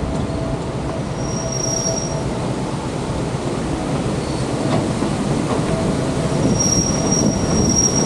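Narrow-gauge passenger train rolling, a steady rumble of wheels on rail with high-pitched wheel squeal coming in about a second in and again from about six seconds in.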